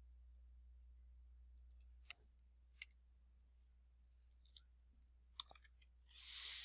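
A few faint, sparse computer keyboard keystrokes and clicks, spaced about a second apart with a quick cluster near the end, then a soft rush of breath.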